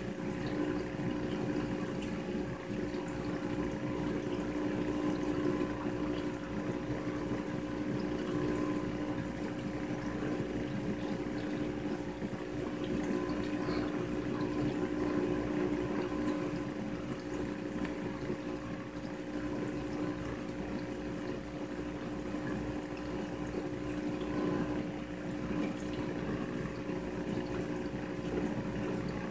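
Reef aquarium pumps running: a steady hum with a constant low tone, over an even wash of moving water and bubbles.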